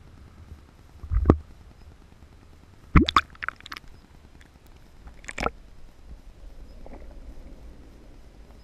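Water sloshing and splashing against a GoPro camera held half-submerged at the surface, muffled through its waterproof housing: three sharp splashes, about one second in, around three seconds in and around five and a half seconds in, with a low gurgling rumble between.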